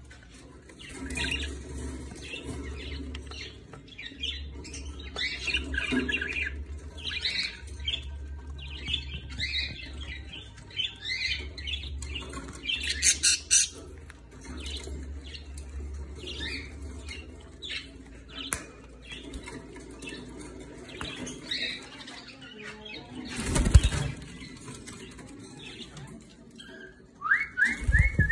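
Caged budgerigars chattering and warbling, with many quick high chirps and squawks overlapping. A sudden loud flurry of wing flapping comes about 23 seconds in, and a run of quick rising whistled notes near the end.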